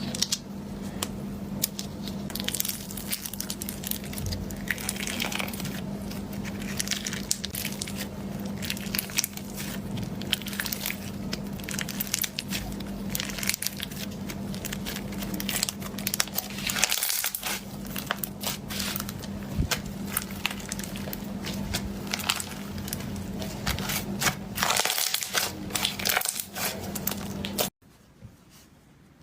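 Slime being squeezed and crushed by hand, giving a dense, irregular crackling and crunching. It cuts off suddenly near the end.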